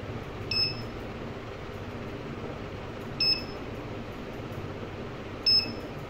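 Short high electronic beeps from a CCTV PTZ keyboard controller's beeper, three of them a few seconds apart, over a steady low hum.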